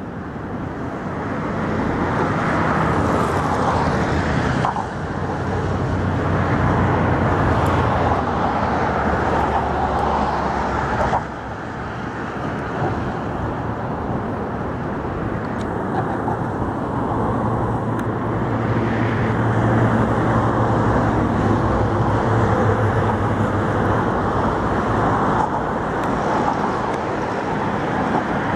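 Steady road traffic close by, cars and heavier vehicles running past with a low engine hum. The sound changes abruptly twice in the first dozen seconds, and a deeper engine hum swells later on.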